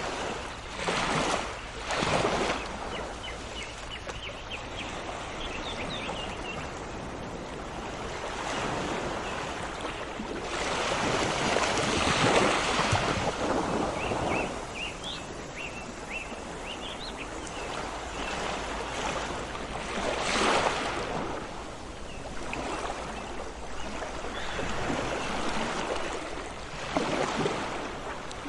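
Sea waves washing onto the shore in repeated surging swells, with small birds chirping more faintly between the surges.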